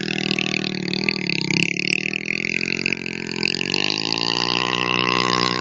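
Small single-cylinder motorcycle engine revving under load while its rear wheel spins in loose sand; the pitch climbs a little about two-thirds of the way in.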